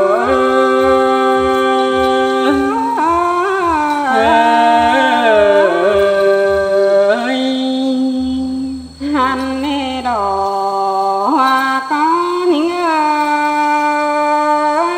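Tai (Thai ethnic) courtship-song music: a drawn-out melody on long held notes with sliding ornaments, over a soft low beat that drops out about halfway through.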